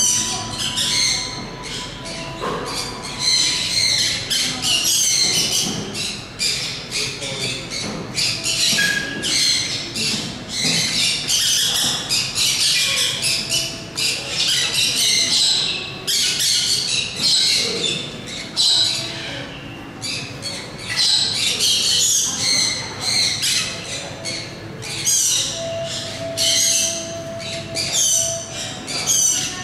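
Many birds chattering and squawking without pause, a dense run of short high-pitched calls, with a few brief whistled tones among them.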